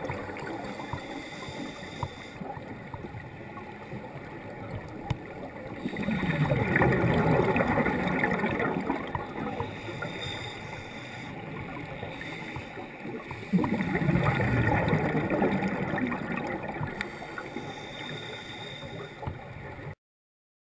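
Scuba divers' exhaled bubbles bubbling past an underwater camera in two long bursts, about six and thirteen seconds in, with quieter underwater noise between. The sound cuts off near the end.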